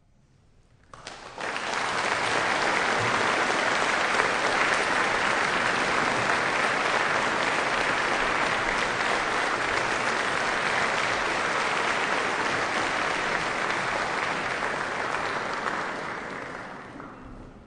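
Audience applauding after a choral piece. It starts about a second in, after a moment of silence, and fades out near the end.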